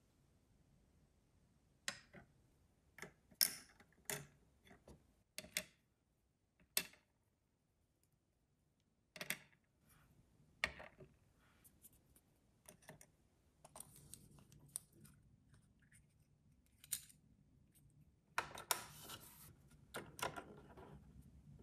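Tiny plastic miniature kitchen pieces being handled and set down: a series of light, separate clicks and taps, with a longer rustling scrape near the end.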